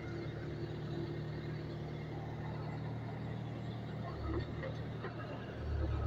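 Engine running steadily with a low, even drone that grows a little louder near the end.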